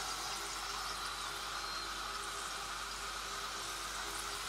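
Strips of khvorost dough deep-frying in well-heated vegetable oil in a pot: a steady bubbling sizzle.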